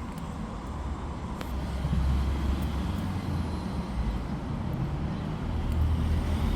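Street traffic: a low rumble of passing vehicles that swells about two seconds in and again near the end.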